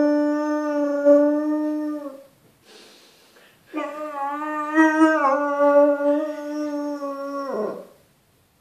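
Dog howling: one long steady howl ends about two seconds in, and after a short pause a second long cry ends with a falling drop near the end.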